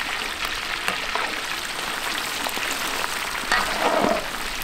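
Whole fish deep-frying in a wok of bubbling oil, a steady crackling sizzle. Near the end a louder, brief scrape and clatter of the metal spatula in the wok.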